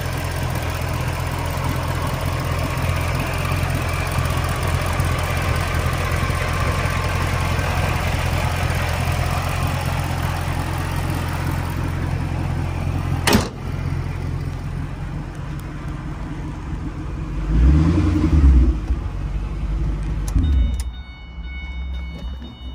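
2005 Ford GT's supercharged V8 idling steadily with the engine bay open. About thirteen seconds in the rear engine cover is slammed shut with one sharp bang, after which the idle is more muffled, swells louder briefly, and near the end drops quieter as heard from inside the cabin, with faint high chime-like tones.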